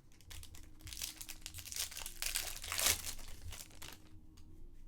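Wrapper of a 2019 Bowman Draft Jumbo card pack crinkling as it is handled and torn open. It is a dense crackle that is loudest two to three seconds in.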